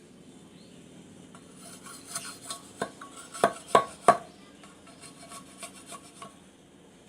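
Bamboo being worked by hand: a run of light scrapes and clicks with three sharp knocks in quick succession near the middle.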